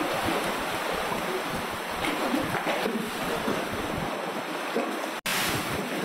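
Sea water surging into the concrete jetty structure, a steady racket of waves washing and sloshing, with wind buffeting the microphone. The sound drops out for an instant about five seconds in.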